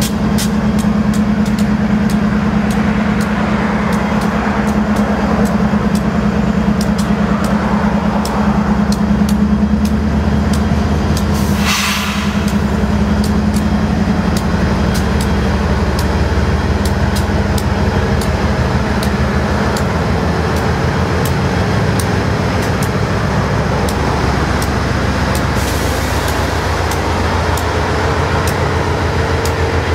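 Union Pacific GE diesel-electric locomotives, AC45CCTE #5433 and AC44CW #6563, running as they roll slowly past with a steady engine hum. A brief hiss comes about twelve seconds in.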